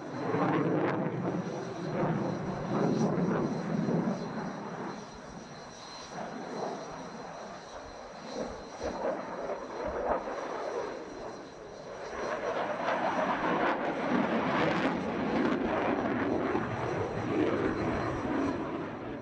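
Jet noise from a Belgian Air Force F-16 MLU's Pratt & Whitney F100 turbofan as the fighter manoeuvres overhead. The rumble is loud for the first few seconds, fades through the middle, and builds again from about twelve seconds in.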